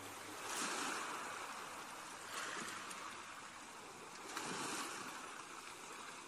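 Atlantic ocean surf recording: waves washing in three times, each swell rising and falling over about a second, with no musical tones.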